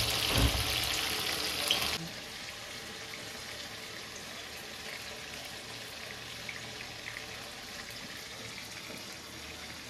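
Batter-coated mushrooms deep-frying in hot oil: a steady sizzle with a couple of small ticks. About two seconds in it drops suddenly to a softer, steady hiss.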